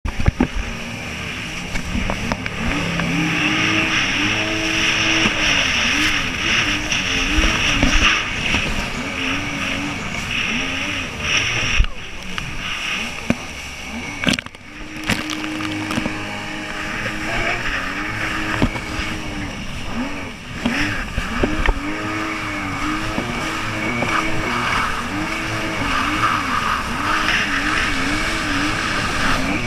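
Jet ski engine running at speed, its pitch rising and falling again and again, over the rush of wind and water spray.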